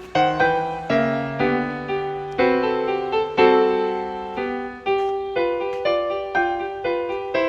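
Background piano music: a gentle melody of struck notes, each ringing and fading, with low bass notes under the first half that then fall away.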